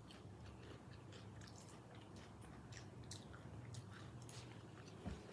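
Faint close-up chewing of French fries, with soft, scattered mouth clicks and small crunches.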